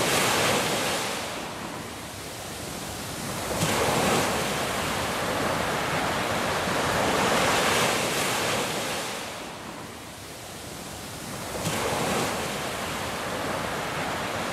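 Surf on a sandy beach: small waves breaking and washing up the shore, the hiss of water swelling and fading roughly every four seconds.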